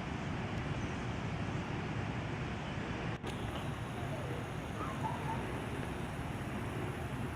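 Steady rumble of road traffic, with a brief dropout about three seconds in.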